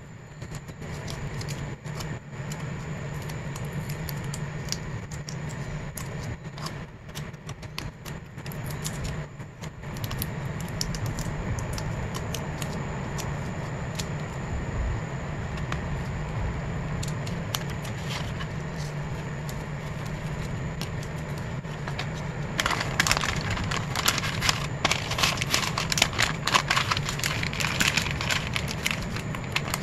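Clear plastic photocard sleeves and card holders being handled: scattered small clicks and crinkles, over a steady low hum. About three-quarters of the way through they give way to dense crackling of plastic film as a card is worked into a plastic binder sleeve.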